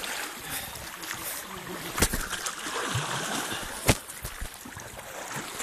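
Fast river water rushing around a kayak as it is paddled through rough water, with two sharp knocks, about two seconds in and near four seconds in.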